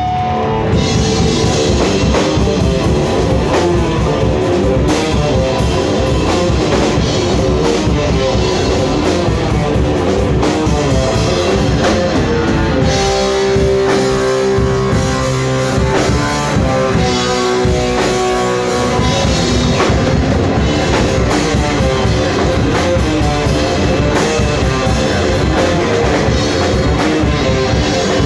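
Live rock band playing electric guitar, bass guitar and drum kit. About 13 seconds in the drums drop back for several seconds while the guitars hold sustained notes, then the full band comes back in.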